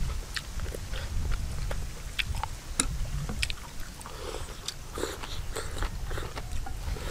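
People eating crab noodle soup: chewing and slurping noodles, with scattered small clicks of chopsticks and bowls, over a low steady rumble.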